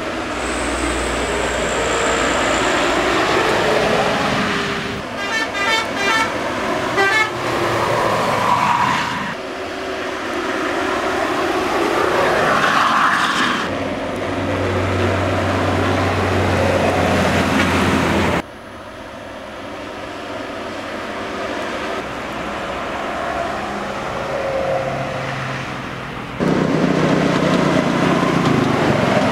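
Intercity coaches passing at speed on a highway, with engine and tyre noise and horns honking, including a rapid pulsing horn pattern a few seconds in. The sound changes abruptly several times as different passing buses follow one another.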